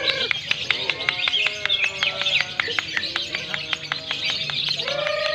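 Many lovebirds singing at once: dense, fast, chirping trills that overlap continuously, with a longer held note near the end.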